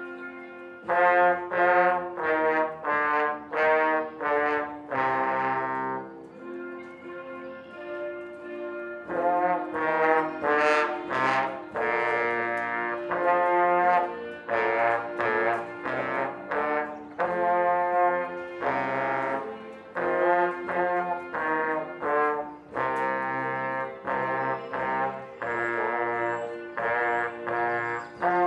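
Trombone playing a tune: first a run of short, separate notes, then, after a few quieter seconds, a longer run of notes.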